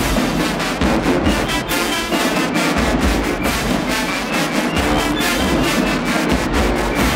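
Marching band playing a loud brass tune, horns over the low notes of sousaphones.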